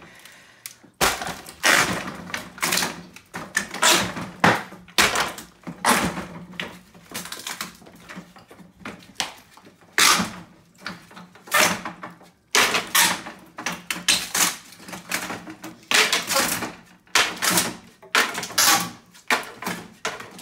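Old wooden plank wall boards being ripped off the studs by hand: repeated, irregular cracks and clattering knocks as the planks break loose and drop onto a pile of boards.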